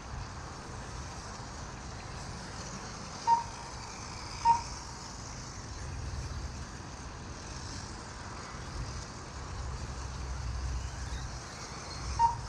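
Short single-pitched electronic beeps from a race lap-timing system, three in all: about three seconds in, a second later, and near the end. Under them is a steady low rumble of wind on the microphone that swells about halfway through.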